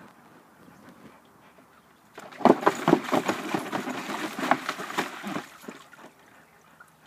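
A husky-type dog splashing in a water-filled plastic kiddie pool: a burst of loud, choppy splashing starts about two seconds in and lasts about three and a half seconds, then dies away.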